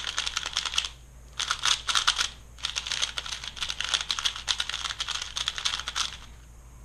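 Valk 3 3x3 speedcube being turned fast by hand: rapid plastic clicking and clacking of the layers in quick runs with short pauses, as the new, still tight cube is broken in.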